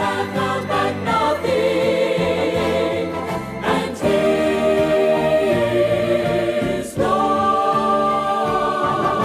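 Gospel song: a vocal group singing long held chords in harmony, moving to a new chord about four seconds in and again about seven seconds in.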